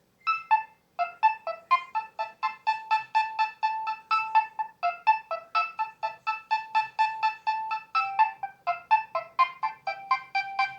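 Nokia 6100 mobile phone ringtone playing: a quick melody of short, fast-fading notes. A brief opening phrase and a short pause about a second in are followed by a steady run of about four notes a second.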